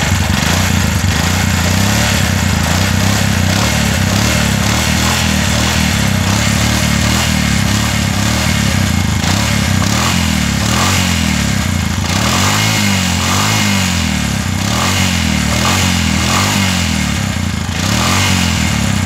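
Bajaj three-wheeler's single-cylinder four-stroke engine running, heard close at the exhaust tailpipe. It runs steadily, with the engine speed wavering up and down a little in the second half. The engine is worn and smoking from the exhaust, the fault that calls for a new cylinder bore.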